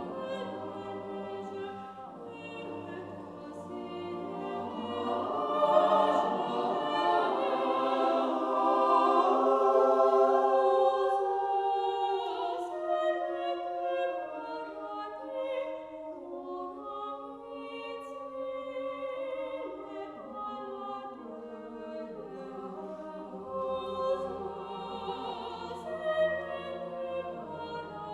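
Unaccompanied chamber choir singing sustained, slowly moving chords, with a mezzo-soprano solo voice. It swells to its loudest about eight to eleven seconds in, then grows softer.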